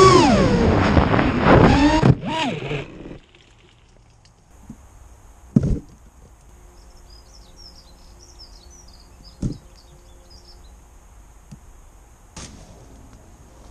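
A small FPV drone's electric motors whine, their pitch rising and falling, then break up as it crashes into a bramble bush about two seconds in. The motors stop about three seconds in. After that it is quiet, with two sharp knocks and faint bird chirps.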